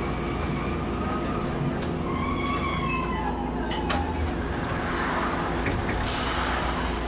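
Tram running on street track, heard from inside: a steady low rumble of wheels on rail with a motor hum. A brief high whine with overtones comes about two to three seconds in, and a rushing hiss sets in about six seconds in.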